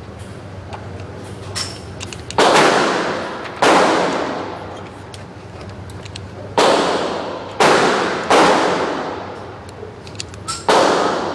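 Six pistol shots, most likely from a Glock, fired at uneven intervals, each followed by a long echoing decay.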